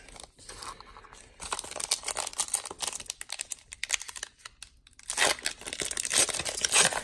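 Wrapper of a Classics football trading card pack being torn open and crinkled by hand. The crackling comes in two bouts with a quieter pause of about two seconds between them.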